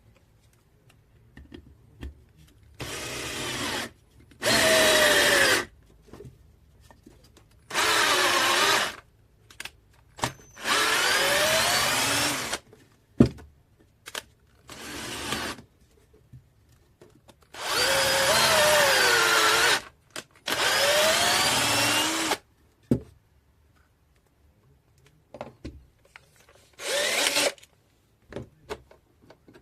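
KUZUPRO 21V cordless drill/driver motor run in about eight short bursts of one to two seconds. Its whine glides up and down in pitch within the runs, with small clicks and knocks in between.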